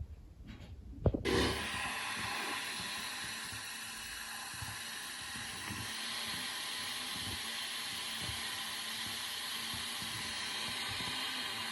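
A sharp click about a second in, then a steady hiss that starts abruptly and holds level.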